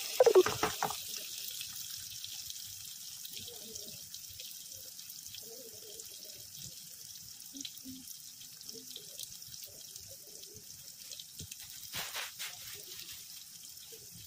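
Onions, green chilies, garlic and curry leaves sizzling in hot oil in a nonstick kadai, a steady hiss. A spatula clatters and scrapes against the pan in the first second as the mixture is stirred.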